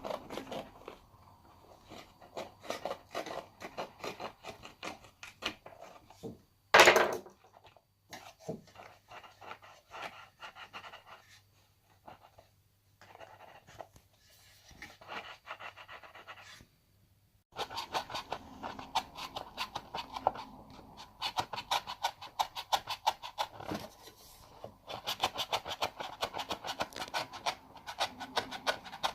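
Damaged subwoofer driver being overdriven, its cone and voice coil rattling and crackling in rapid clicks, in bursts with short pauses and one much louder burst about seven seconds in.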